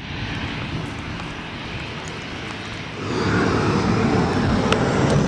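Jet airliner engines running on the airfield: a steady rumble that steps up louder about three seconds in.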